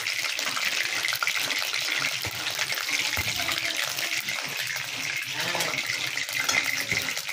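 Hot oil sizzling and crackling steadily in an iron kadhai over a gas burner, bubbling at frying heat.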